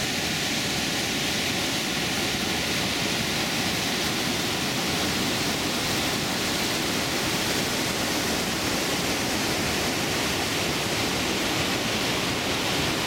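Water pouring over a stone weir into a river: a steady, unbroken rush of falling white water.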